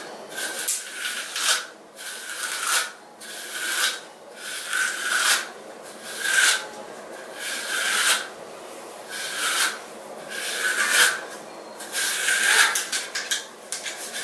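Wide-tooth comb raking through thick, dry natural hair: a dozen or so rasping strokes a little over a second apart, the teeth catching and scraping through tangles as it is combed out.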